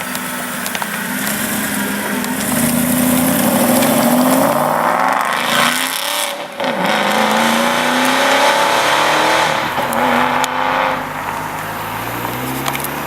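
Aston Martin V8 Vantage's V8 engine accelerating hard, its pitch climbing. About six seconds in the sound dips briefly, then it climbs again until it eases off about eleven seconds in.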